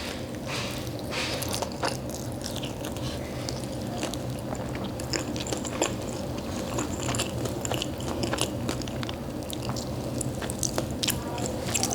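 A person chewing a mouthful of jianbing guozi, with many small crackles as the crispy deep-fried wonton-wrapper cracker inside crunches between the teeth.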